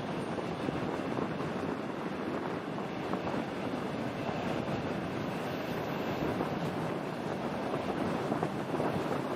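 Steady rolling noise of a passenger train carriage's wheels on the rails, heard through an open carriage window, with wind buffeting the microphone.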